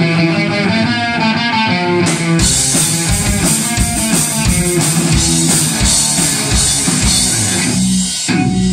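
Garage rock band playing live on electric guitar, bass guitar and drum kit. The cymbals come in heavily about two and a half seconds in, and the playing briefly drops back near the end.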